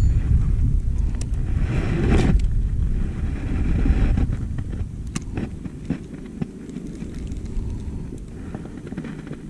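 Wind buffeting the microphone as a low rumble, easing after about four seconds, with a brief rustle about two seconds in and a few faint clicks later on.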